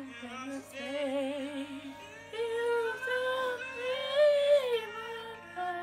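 A pop song with a woman's voice singing long held notes with vibrato, over backing music.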